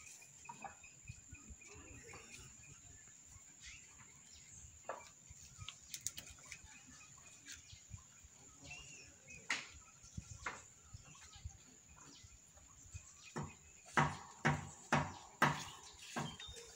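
Scattered rustling and knocking as a kithul palm's hanging flower cluster is handled high in the tree, with a quick run of sharp knocks near the end. A steady high whine and a few bird chirps sit underneath.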